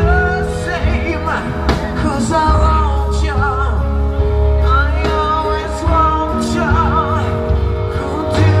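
Live rock and roll band playing: electric guitars, bass and drums with singing over them, at a steady beat.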